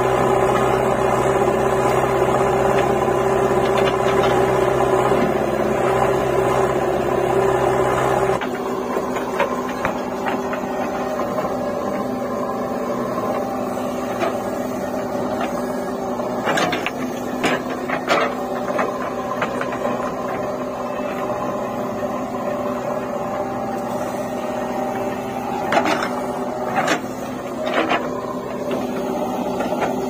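Diesel engine of a JCB 3DX backhoe loader running steadily with a deep hum; about eight seconds in, the sound changes abruptly to the backhoe at work, engine running with clanks and scrapes as the bucket digs soil and stones, in clusters about halfway through and near the end.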